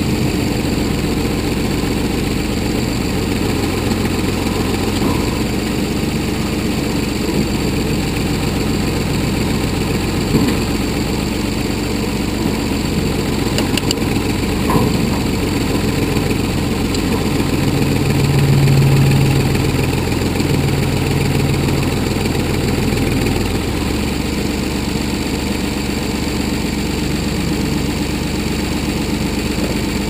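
1981 Ford 555 backhoe engine running steadily while the backhoe digs. The engine note rises and swells for a few seconds about two-thirds of the way through, as when the hydraulics take load.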